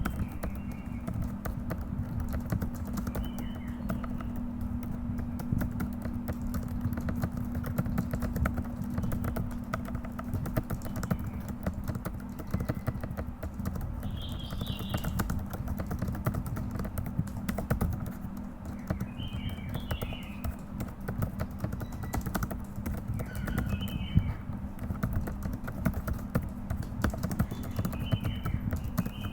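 Computer keyboard typed on quickly and continuously: a dense, uneven patter of keystrokes during a timed typing test.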